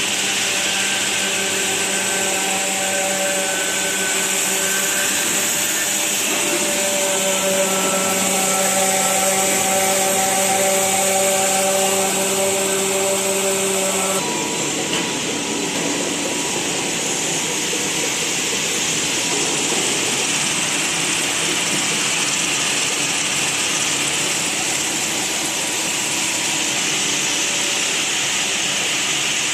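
Steady machinery noise from a biodegradable plastic granule making (pelletizing) line: a broad hiss with a hum of several steady tones. About halfway through, the hum cuts off suddenly and the hiss carries on.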